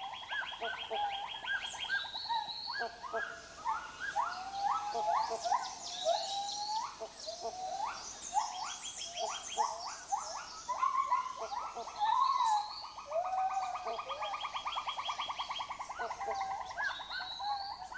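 Tropical rainforest chorus of many overlapping animal calls: short rising whistled notes, chirps and fast rattling trills, continuous and noisy.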